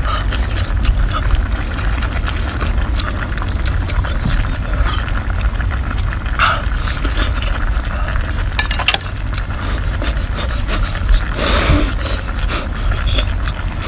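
Wet chewing and mouth clicks from someone eating hot cooked sea snail meat. A steady low rumble runs underneath.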